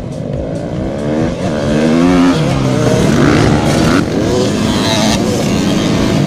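A pack of motocross bikes revving hard and accelerating off the start line, many engine notes rising in pitch together as the leaders pull away.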